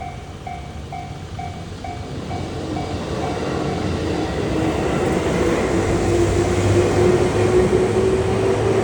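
Japanese level-crossing bell dinging about twice a second, soon buried as a JR West Nara Line train approaches and runs through the crossing. The train noise grows louder, with a steady tone sounding over it from about halfway through.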